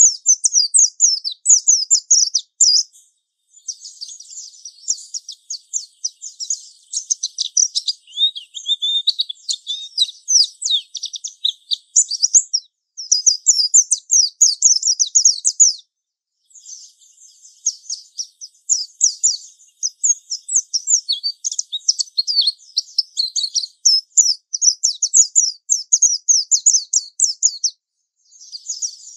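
Japanese white-eye (pleci) singing its long, rapid, high-pitched twittering 'ngalas' song: a bird in full continuous song. It sings in long unbroken phrases, with brief pauses about 3 seconds in, about 16 seconds in and near the end.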